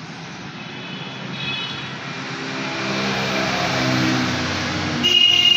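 A motor engine droning and growing steadily louder, with a sharper high whine coming in near the end.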